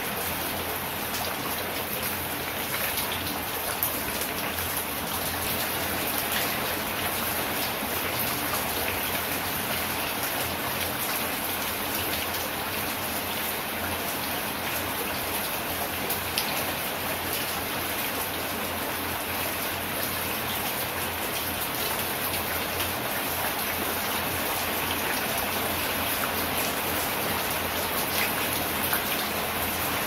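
Steady rain falling, an even hiss of drops with a few sharper single drop hits standing out now and then.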